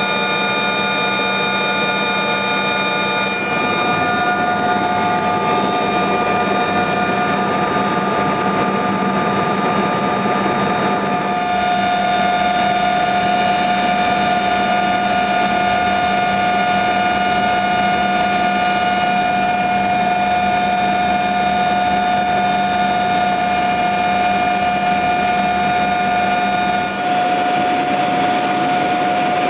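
Aircraft turbine engines droning steadily as heard inside the cabin, with a constant high whine over a low hum.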